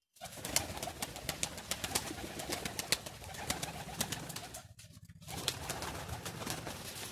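Domestic pigeons cooing in a small loft, with many sharp clicks and taps throughout and a brief lull about five seconds in.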